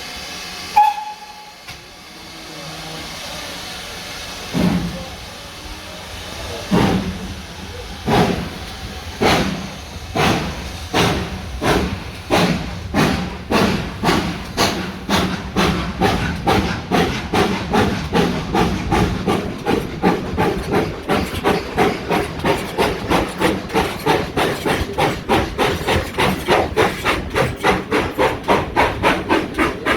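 A steam locomotive pulling away: steam hisses, a short whistle toot sounds about a second in, then the chimney exhaust beats begin slowly and quicken steadily as the train gathers speed.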